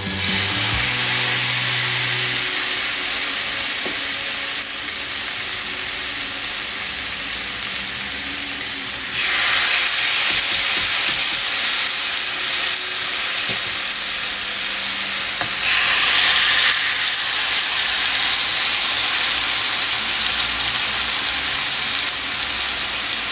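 Marinated chicken pieces sizzling as they fry in about two tablespoons of hot oil in a non-stick frying pan. The sizzle starts as the first piece goes in and swells louder about nine seconds in and again around sixteen seconds in, as more pieces are laid into the pan.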